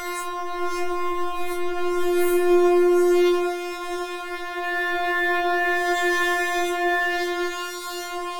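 Synthesizer line holding one steady note with a buzzy, horn-like tone whose brightness keeps shifting in a vowel-like "talking" way. It swells loudest about two to three seconds in, then eases back.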